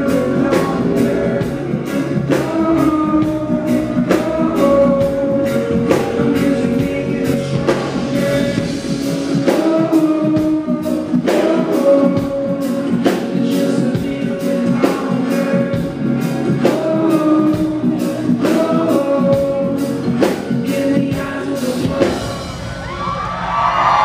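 Live reggae band playing: a man singing over electric guitar, keyboard and a steady drum beat. Near the end the song winds down and the crowd starts cheering and whooping.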